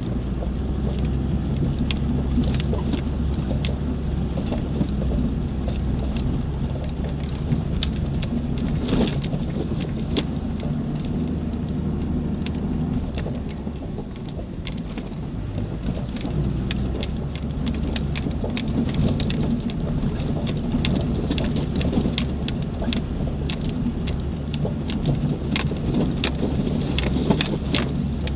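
Off-road 4x4's engine running steadily under load, heard from inside the cabin, with tyres crunching over a dry dirt and gravel trail. Frequent small clicks and knocks from stones and rattles run throughout.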